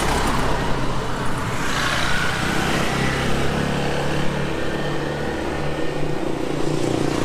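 Street traffic with a car's engine running close by, its low engine note steady through the second half, over road noise.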